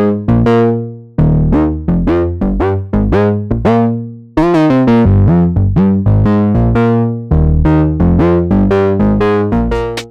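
Ableton Drift software synthesizer playing a preset: short struck notes and chords that fade quickly, strung into a melodic phrase, with brief pauses about a second in and again near four seconds.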